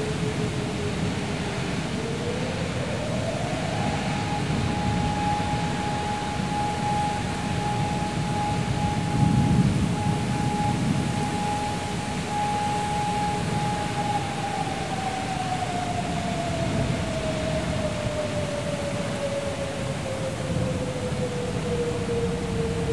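Heavy rain and gusting storm wind as a thunderstorm moves in. Over it, a siren winds up about two seconds in, holds one steady tone for about ten seconds, then slowly winds down again.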